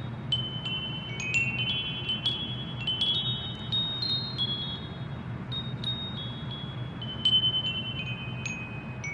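Wind chimes ringing: bright metal tones struck at irregular intervals, each ringing on and overlapping the next, over a steady low hum.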